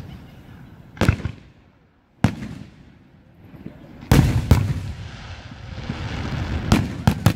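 Aerial firework shells bursting: a series of sharp bangs, the heaviest pair about four seconds in and a quick cluster near the end, with a crackling hiss between them.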